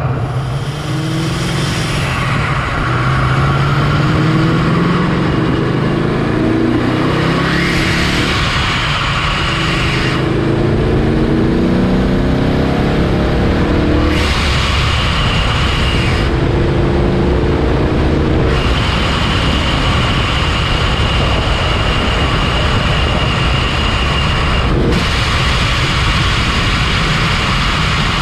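Vortech-supercharged 2019 Ford Mustang GT's 5.0 V8 with long-tube headers accelerating through the gears: the engine note rises in pitch several times, broken by shifts. A high, steady supercharger whine comes through over the engine in the later part.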